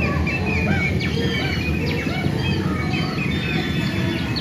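Many quick, short bird chirps and tweets from a dark ride's soundtrack, over a steady low rumble of the ride.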